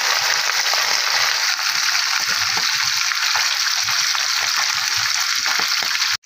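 Semolina-coated Indian mackerel (bangda) shallow-frying in hot oil in a pan: steady sizzling with many small crackling pops. The sound cuts out abruptly for a moment just before the end.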